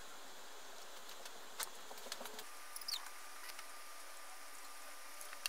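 Light clicks and rubbing from handling a plastic model kit and pressing decals onto its hull with a cotton swab, faint over a steady hiss, with a short high squeak about three seconds in.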